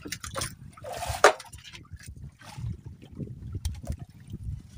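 Water trickling and lapping around a small fishing boat, with scattered small knocks and one sharper knock about a second in.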